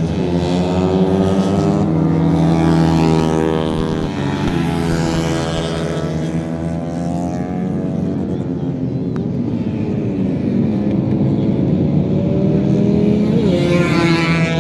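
Motor running steadily, its pitch drifting up and down several times, with a higher rising whine near the end.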